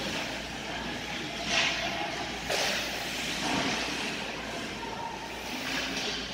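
Ice hockey play in an indoor rink: several short hissing scrapes of skate blades on the ice, the loudest about a second and a half in, over a steady low rink hum.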